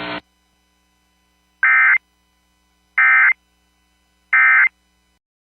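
Three short bursts of Emergency Alert System SAME digital data, warbling data tones each under half a second long and about 1.3 seconds apart: the end-of-message code that closes the broadcast alert.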